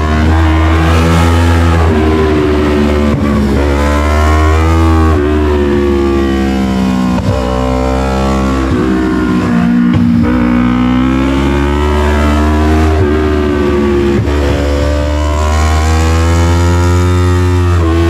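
Yamaha MT-03's parallel-twin engine through an SC-Project full exhaust, revving up through the gears while riding. The pitch climbs and drops back at each shift, several times, and dips about halfway before climbing again.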